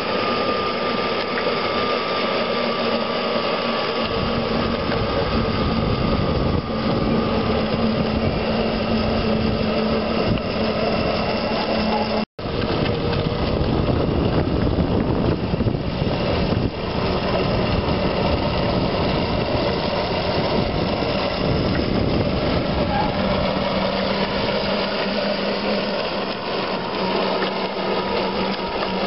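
Steady running noise of a vehicle on the move: an even hum with road and wind noise and no change in pace. It cuts out for an instant about twelve seconds in, then carries on the same.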